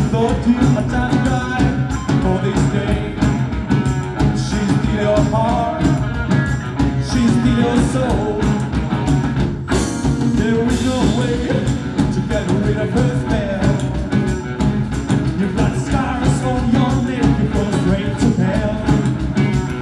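Live rockabilly band playing a song: slapped upright bass, electric and acoustic guitars and drums under a lead vocal. There is a sharp cymbal-like hit with a ringing wash a little before halfway.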